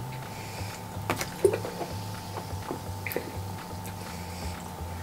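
Quiet background music with a low repeating bass line, under scattered clicks and crackles from a plastic water bottle being gripped and drunk from. The loudest click comes about a second and a half in.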